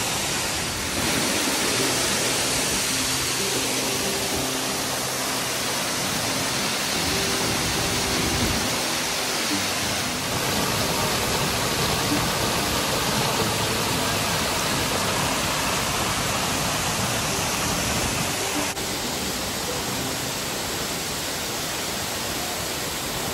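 Steady rushing noise with no clear rhythm or pitch, slightly duller for the last few seconds, with faint low tones in the first half.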